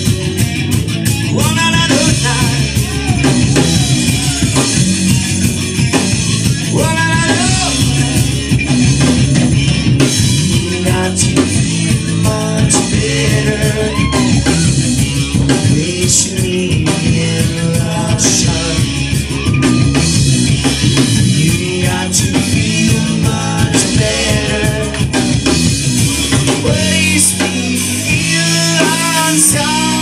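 Live rock band playing, with electric guitars and a drum kit under a male singer's vocals.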